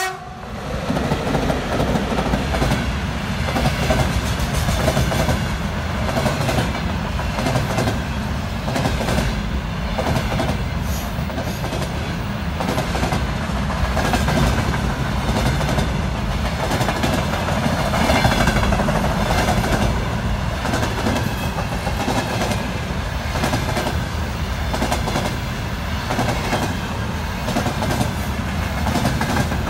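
A container freight train hauled by a VL80S electric locomotive passes close by: a steady heavy rumble, with the repeated clickety-clack of wagon wheels going over the rail joints.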